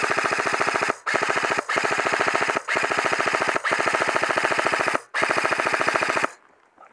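Airsoft rifle firing on full auto in six rapid bursts, each about half a second to a second and a half long, with short breaks between them. The bursts stop about six seconds in.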